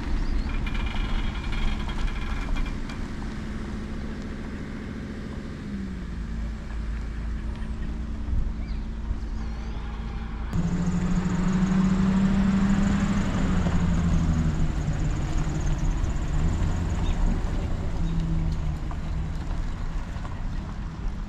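A pickup truck towing a travel trailer drives slowly past, its engine a steady hum that drops in pitch about six seconds in as it pulls away. About halfway through the sound changes abruptly to a louder engine as another vehicle towing a camper trailer goes by.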